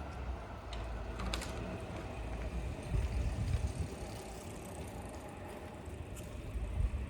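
Low, uneven vehicle rumble, swelling a few seconds in, with a few sharp clicks about a second in.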